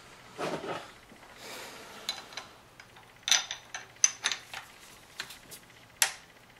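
Light metallic clicks and clinks of a BMW single VANOS unit being rotated and worked onto the exhaust camshaft sprocket, its splines not yet catching. The clicks come irregularly, a few sharper knocks among them, mostly in the second half.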